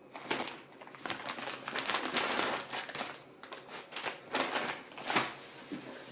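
Irregular rustling and crinkling, in uneven bursts, the loudest about two seconds in and again near five seconds in.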